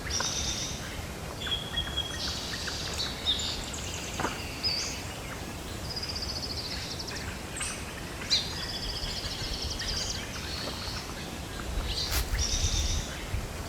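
Several birds calling in the trees: repeated high chirps and quick trills, one after another. A low rumble swells near the end.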